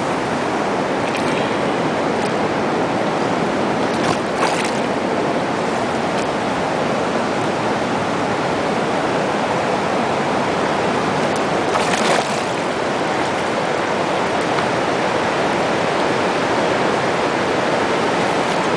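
Puelo River current rushing steadily, with two brief splashes about four seconds and twelve seconds in.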